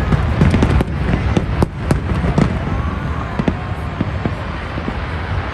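Fireworks display: aerial shells bursting in quick succession, a dense run of sharp bangs over a continuous low rumble, thinning to fewer, smaller bangs after about two and a half seconds.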